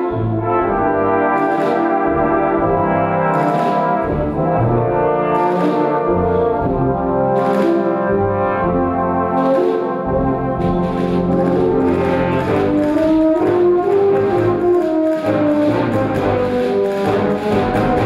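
Brass band playing sustained chords, tubas and euphoniums under cornets and trombones. A sharp high percussion stroke sounds about every two seconds, then quickens into a steady rapid beat from about halfway.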